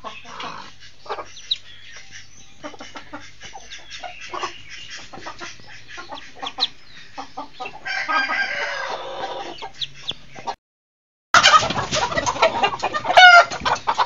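Broody hen clucking in short, repeated calls while sitting on her hatchlings. The sound drops out for about half a second near the end, then comes back louder and busier, with a few quick high notes.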